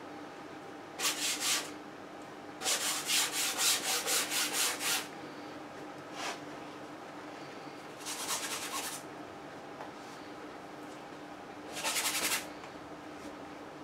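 Stiff bristle brush scrubbing oil paint onto a stretched canvas in quick back-and-forth strokes, about four strokes a second. The strokes come in four short bouts, the longest lasting a couple of seconds. The paint is being rubbed in as a thin tonal underlayer.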